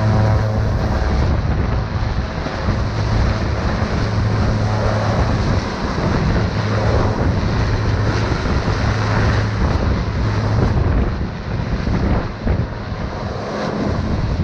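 Small turboprop plane's engines running at high power with a steady low propeller hum as it begins its takeoff roll.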